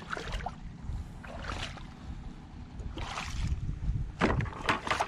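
Shallow seawater splashing in four short bursts about a second apart, over a low steady rumble.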